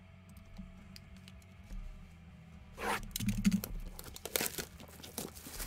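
Packaging of a sealed trading card box being cut and torn open by hand: a run of scratchy ripping and crinkling starting about three seconds in, after a quiet start.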